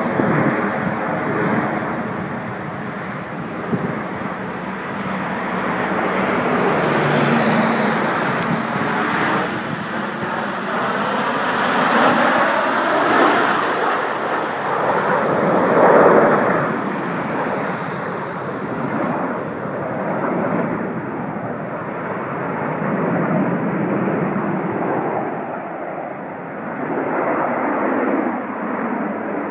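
Formation of Canadair CT-114 Tutor jets, each with a single turbojet, flying past overhead: continuous jet noise that swells and fades several times, loudest about twelve and sixteen seconds in, with a high whine coming and going in the first half.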